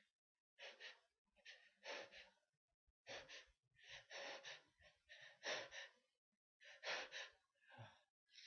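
Faint, quick gasping breaths in short bursts, often in pairs, about one burst a second: the catching inhales of someone building up to a sneeze.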